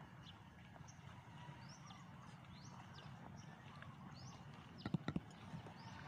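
Spinning rod and reel being handled: a quick cluster of sharp knocks about five seconds in, over a quiet background with faint high chirps.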